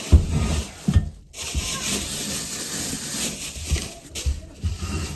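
Old toilet bowl being rocked loose from the floor, its base scraping and grinding with several dull thumps.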